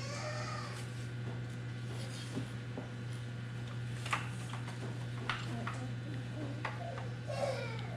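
Scattered light clicks and taps of hands working the plastic servo horn and shift linkage of a Traxxas Summit RC truck, over a steady low hum.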